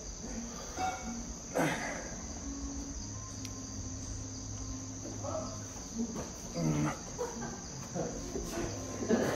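Crickets chirring in a steady, high-pitched drone that does not let up. A few brief, louder sounds come over it at about a second and a half, five and seven seconds in.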